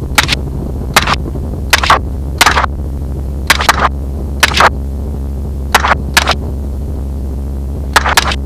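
Rifle shots fired from a helicopter, about a dozen sharp cracks in irregular singles and quick pairs, over the helicopter's steady low drone.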